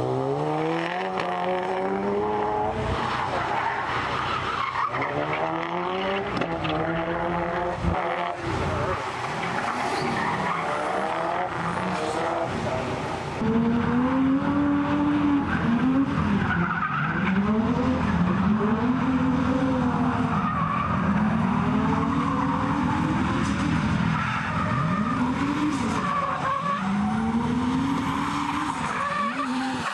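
Drift car engines revving, the pitch climbing through the gears early on and then rising and falling again and again as the throttle is worked through the drift, over the noise of tyres skidding on the track. The sound gets louder about halfway through.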